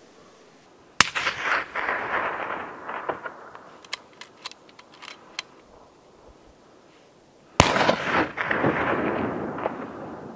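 Two shots from suppressed hunting rifles, about six and a half seconds apart, each followed by a long echo rolling back off the mountainsides. A few light clicks come between them.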